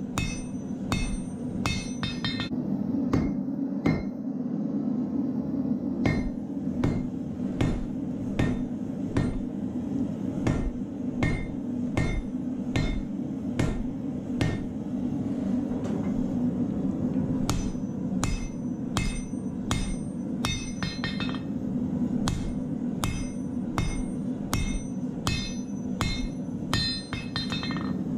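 Hand hammer forging an orange-hot steel knife blade on an anvil: about two blows a second, each with a short metallic ring, and a brief slackening a few seconds in. A steady low rush from the burning forge runs underneath.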